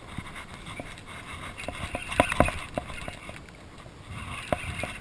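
Baitcasting reel being cranked while reeling in a hooked fish, with irregular clicks and knocks of hands and reel over a wash of wind and water, busiest about two seconds in and again near the end.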